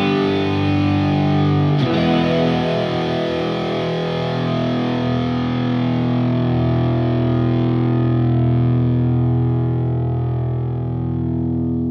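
Background music of distorted electric guitar through effects, playing long held chords, with a new chord struck about two seconds in and a slow fade near the end.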